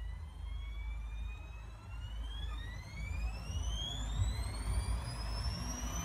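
Beko front-loading washing machine's drum motor spinning up: a whine that rises steadily in pitch over a low rumble.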